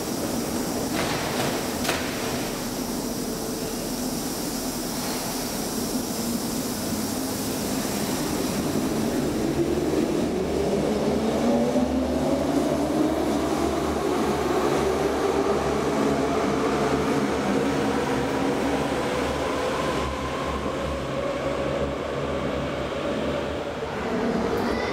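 Hamburg U-Bahn train pulling out of an underground station: a couple of knocks as the doors close in the first two seconds, then the traction motors' whine rising steadily in pitch as it accelerates away over a low rumble, levelling off and easing near the end.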